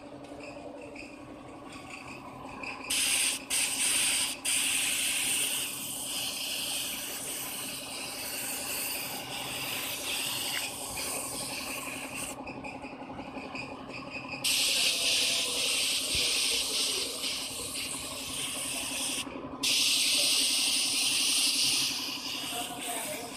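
Primer spraying in long hissing bursts, starting about three seconds in. There is a pause a little past the middle and a brief break near the end, over a steady low hum.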